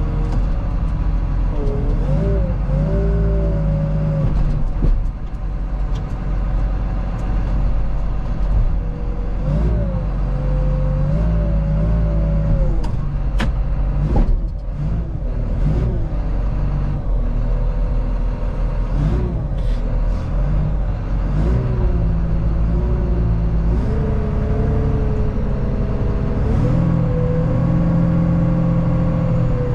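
Front-end loader's engine running and revving up and down as the bucket of salt is raised and the machine moves, heard from inside the cab, with a few sharp knocks.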